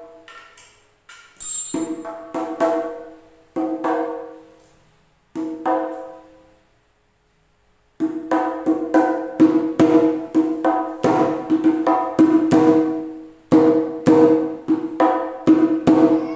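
Kendang jaranan, a tall jar-shaped Javanese hand drum with a hide head, struck by hand. Each stroke rings with a clear pitch. The first half has a few separate strokes and short runs with pauses between them, and from about halfway a steady, fast rhythmic pattern is played.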